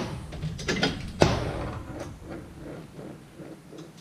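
Hand tools knocking and clinking against the steel parts of a Brunswick A2 bowling pinsetter under repair. Two sharp knocks come at the start and about a second in, then a run of lighter, evenly spaced clicks at about four a second.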